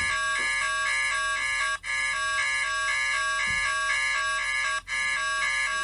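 Synthesized emergency-alert alarm tone: a harsh, buzzing chord of many pitches warbling rapidly back and forth between two notes, broken by two brief drop-outs about two and five seconds in.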